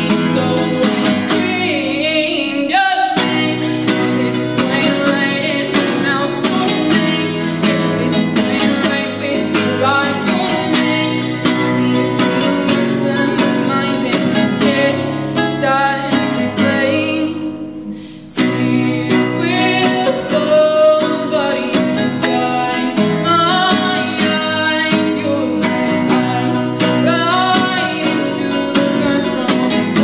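A girl singing to her own strummed classical guitar accompaniment. The strumming is steady, and voice and guitar break off briefly a little past halfway before picking up again.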